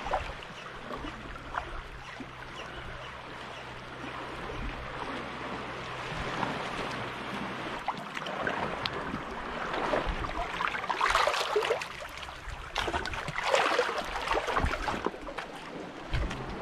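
Sea water washing and splashing against the shore, with louder surges in the second half.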